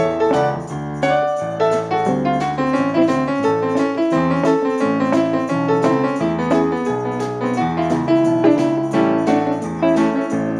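Electronic keyboard played with a piano sound: a flowing melody over sustained chords.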